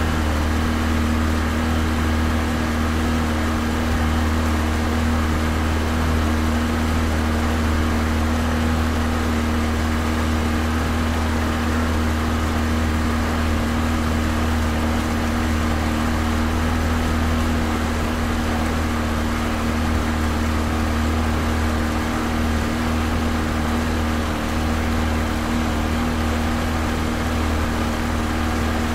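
Pontoon boat's outboard motor running steadily at medium speed, heard close to the motor: a deep, even drone with a steady hum above it and a wash of water and wind noise.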